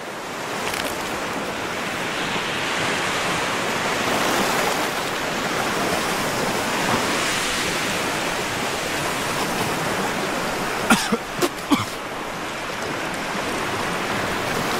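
Sea surf washing in a steady rush that swells and eases over a few seconds. A few short sharp sounds break in about eleven seconds in.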